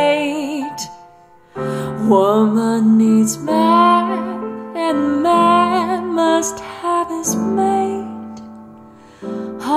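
A song with a woman singing with vibrato over held accompanying notes, played through a pair of Pioneer small two-way Pure Malt speakers with Kevlar-cone woofers and picked up in the room. The music drops out briefly about a second and a half in and fades low shortly before the end.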